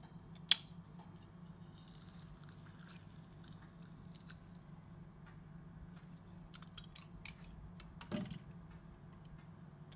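Lime being squeezed in a hand-held metal lime squeezer over a glass bowl: faint squishing and dripping, with a sharp click about half a second in.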